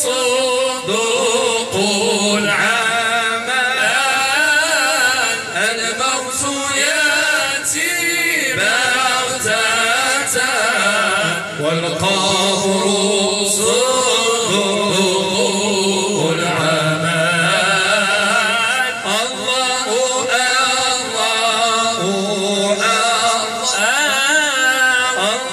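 Men's voices chanting Moroccan Sufi devotional praise (amdah) in long, bending melodic lines, without instruments, sung into a microphone.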